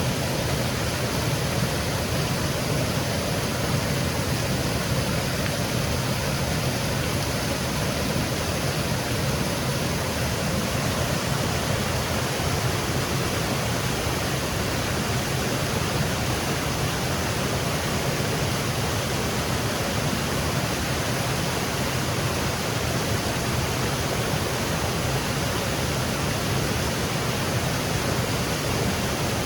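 Small woodland waterfall cascading over rocks: a steady, even rush of falling water.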